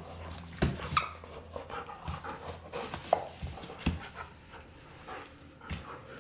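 Golden retriever panting while chewing and mouthing a plush teddy bear toy, with scattered short knocks and clicks as it works at the toy.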